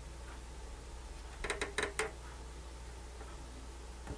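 A quick run of four or five small plastic clicks, about half a second in all, from the input selector switch of a Sony MDS-S707 MiniDisc deck being worked by hand. The switch is dicky: the deck's input keeps flicking between digital and analog.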